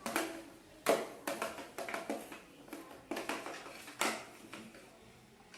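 A series of irregular sharp taps and knocks, about eight in all, unevenly spaced.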